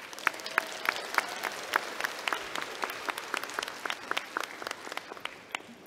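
Audience applauding, with many separate claps standing out, dying away near the end.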